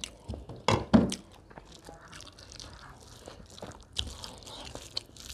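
Wet chewing and lip-smacking of a person eating rice and curry by hand, with a cluster of louder smacks about a second in and another near the end.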